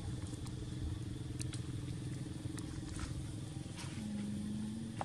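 Steady low drone of a motor vehicle engine running, with a few faint clicks; about four seconds in, a low steady tone joins it for about a second.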